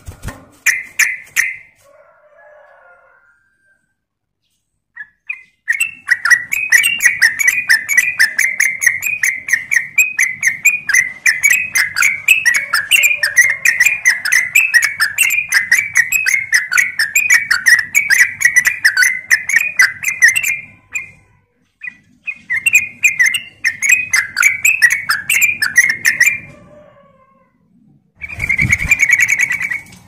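Yellow-vented bulbul singing: a few notes, then a long fast run of chattering notes from about six seconds in to about twenty, a second shorter run after a brief pause, and a short louder burst near the end.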